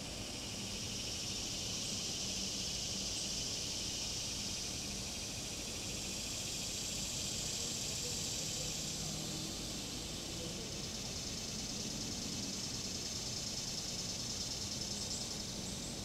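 Cicadas buzzing in the trees, a steady high-pitched drone that swells through the first half, eases a little, and swells again near the end.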